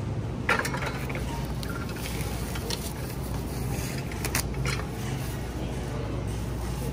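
Thin plastic produce bag pulled from a dispenser roll and torn off, crinkling sharply a few times, over a steady low hum.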